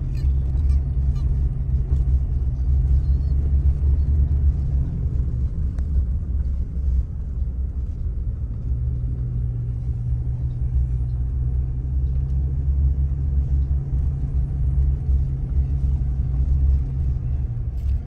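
Steady low rumble of a car driving on an unpaved road, heard from inside the cabin.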